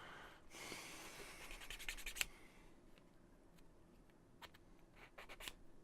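Laser-cut MDF kit pieces scraping against each other as they are fitted, ending in a quick run of small clicks with one sharper click, then a few more light clicks near the end.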